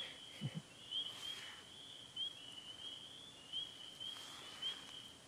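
A chorus of many small frogs calling together, short high rising notes overlapping in an unbroken run. Two faint brief rustles come about a second in and about four seconds in.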